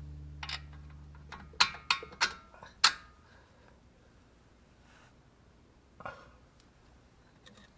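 The tail of background music dying away, then sharp clinks of metal parts or tools being handled: four close together about one and a half to three seconds in, and one more about six seconds in.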